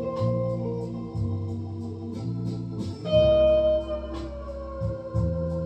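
Telecaster-style electric guitar playing held single notes over a low line that changes about once a second. About three seconds in, a higher note is bent and slides down in pitch.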